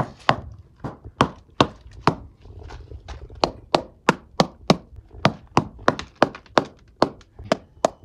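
Small hammer tapping along the painted wooden hull planking of a 110-year-old yawl: about three sharp knocks a second, with a pause of about a second near the middle. The planks are being sounded for rot.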